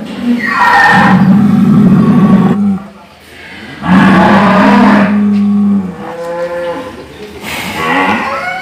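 A cow mooing in hoarse, snore-like calls: two long rough moos of about two seconds each, then shorter, clearer calls near the end.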